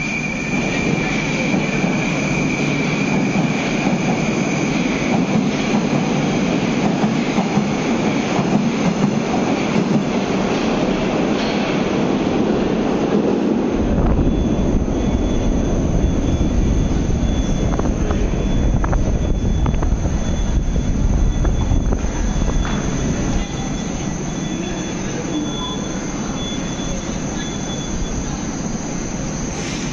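Moscow Metro train running, with a steady rumble and a high wheel squeal that fades over the first half. About halfway through the low rumble grows much heavier, then eases slightly a few seconds later.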